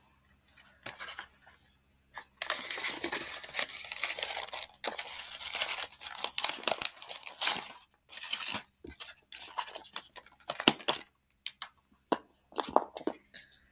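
Cardboard-backed plastic blister packaging being torn open by hand: a long rasping rip from about two seconds in, then a run of sharp crackles and snaps of card and plastic.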